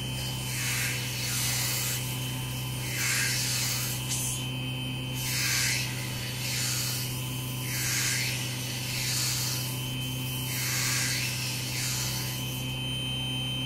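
Coarse sandpaper rasping against a thin wooden float antenna spinning in a Proxxon DB250 mini wood lathe, shaping it to a taper, in repeated strokes about once a second. Under it, the lathe's motor hums steadily.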